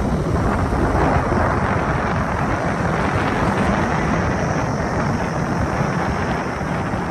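Steady wind rush buffeting the microphone of a moving motorcycle, with low engine and road rumble underneath.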